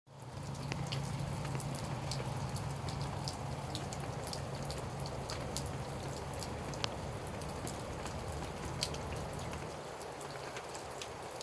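Wintry precipitation falling and hitting surfaces: a steady hiss with many small, irregular sharp ticks. A steady low hum runs underneath.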